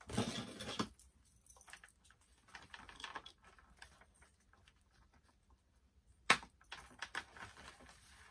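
Hands handling a doll and its plastic packaging: scattered faint rustles and small clicks, with a louder burst in the first second and one sharp click about six seconds in.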